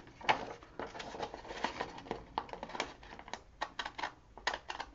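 Scissors cutting a sheet of printed scrapbook paper by hand: a run of short, irregular snips and paper crackles.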